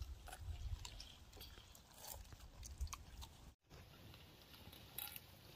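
Faint sounds of people eating by hand from a metal pot: scattered small clicks and chewing over a low rumble. The sound drops out for an instant a little past halfway.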